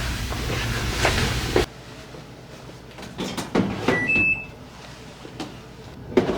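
Kitchen sounds: a steady rushing noise with a low hum cuts off abruptly about a second and a half in. Then come a few knocks of handling and two short electronic beeps from an appliance's buttons, the second one higher, with another knock near the end.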